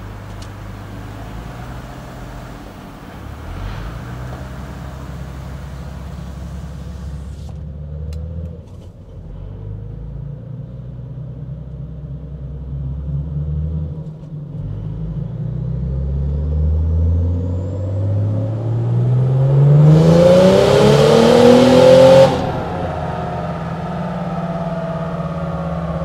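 Mercedes OM606 six-cylinder turbo diesel making a full-throttle dyno pull at its maximum fuelling setting. The engine note dips twice, then climbs steadily in pitch to its loudest point about 20 seconds in, cuts off sharply about two seconds later and drops back to idle.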